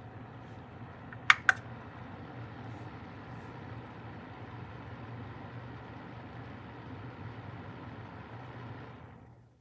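Vornado AVH10 space heater's fan running steadily in fan-only mode, a rushing air noise with a low hum. Two sharp clicks come about a second and a half in, and the fan sound fades out near the end.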